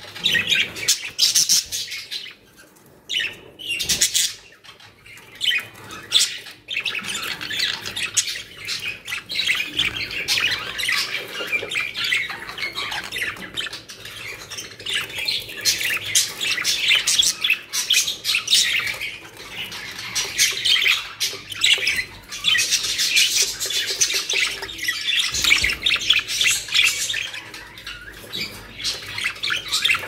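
Budgerigars chattering and squawking in a cage: a near-continuous stream of quick high chirps and warbles, with a short lull about two seconds in.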